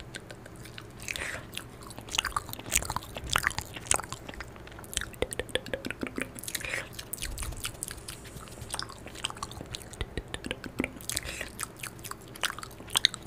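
Close-miked ASMR mouth sounds: wet lip smacks, tongue clicks and mock chewing, as if eating something plucked from the air, in a quick, irregular run of soft clicks.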